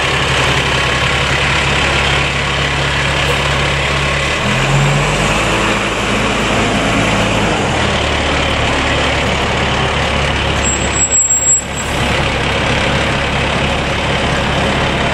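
Diesel engine of an aerial ladder fire truck running as the tandem-axle rig rolls slowly past close by. Its low engine note steps in pitch a couple of times, about four and eight seconds in.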